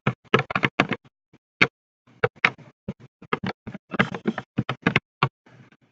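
Slime being mixed and worked in its container: an irregular run of short, wet clicks and squelches, several a second.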